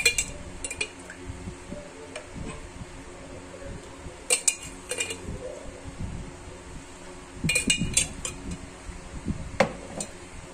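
Metal spoon clinking against a dish in short clusters, near the start, about four to five seconds in, around eight seconds and again near the end, as it scoops sugar syrup to soak a sponge cake layer.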